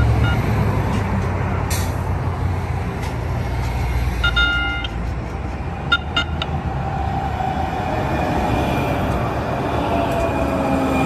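Valley Metro light rail train arriving: a low rumble at first, then the train sounds one short horn toot about four seconds in and a few quick toots about six seconds in. Its motors then whine, falling in pitch, as it slows alongside the platform.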